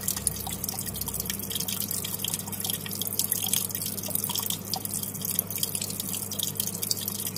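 Water trickling and dripping in a paludarium's small waterfall, many light irregular drips over a steady low hum.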